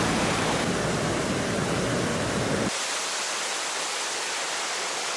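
Steady rush of a mountain waterfall. About two and a half seconds in, it changes to the thinner, hissier rush of whitewater pouring over rocks in a creek, with less low rumble.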